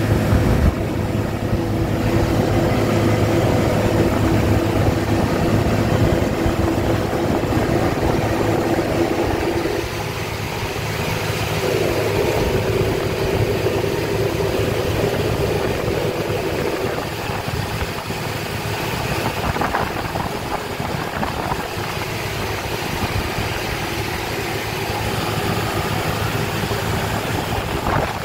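New Holland TS6.125 tractor's diesel engine running steadily while subsoiling, with a steady drone. About ten seconds in the even drone gives way to a rougher, noisier running sound.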